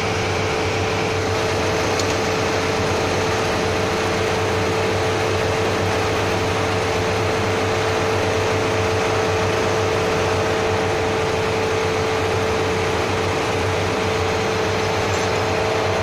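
Steady drone of running machinery, with a constant mid-pitched tone and a low hum in it that do not change.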